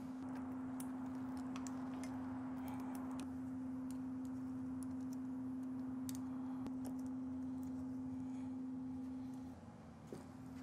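A steady, single-pitched low hum that drops out briefly near the end, with faint scattered clicks and taps of parts and tools being handled as the dirt bike is put back together.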